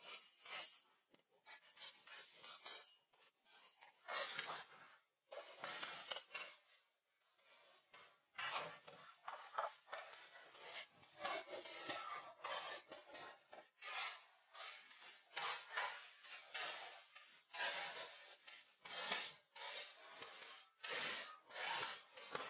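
Metal shovel digging and scraping into stony, gravelly wet ground: an irregular series of grinding scrapes of the blade against stones and soil, with a short pause partway through.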